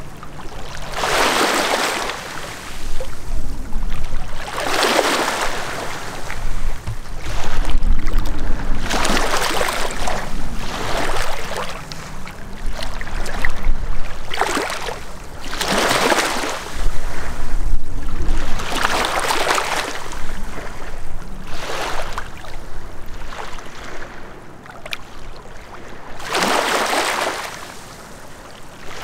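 Small waves lapping on a sandy, rocky lake shore, each wash swelling and fading about every three to four seconds.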